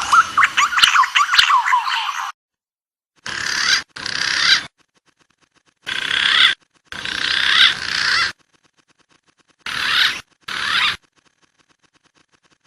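Recorded wild pigeon calls from a bird-lure track. A quick run of sharp chirps stops abruptly about two seconds in. Then come three pairs of short, rough chattering bursts, each cut off sharply, with silence between them.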